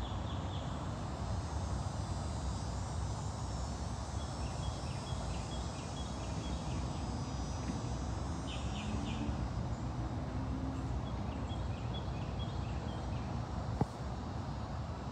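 Outdoor ambience: a steady low rumbling noise with several quick runs of short, high chirps, likely from birds, and a single sharp click near the end.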